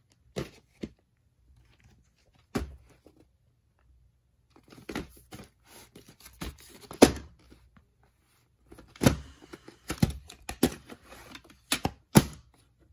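Plastic VHS cases being handled: scattered clicks, knocks and rustles as a clamshell video case is picked up and opened and the cassette taken out, with one loud knock about halfway and a quick run of clicks near the end.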